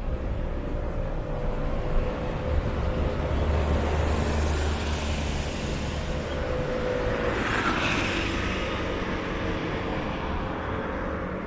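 A passing motor vehicle, a steady engine-and-road noise with a low rumble that builds up, stays loud for several seconds and eases off slightly near the end.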